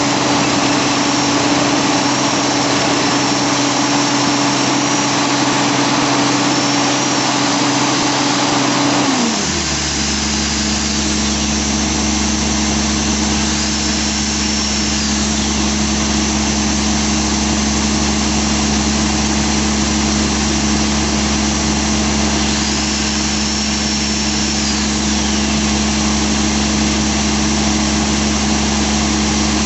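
Crawler-mounted quarry rock drill running loud and steady while drilling a blast hole. About nine seconds in the pitch drops and it settles into a lower steady engine hum, as the drilling stops. A high whine rises and falls a few times.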